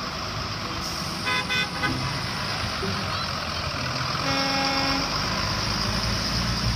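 School buses driving past on a wet road: diesel engines running with tyre hiss on the wet pavement, and a horn toot lasting under a second about four and a half seconds in.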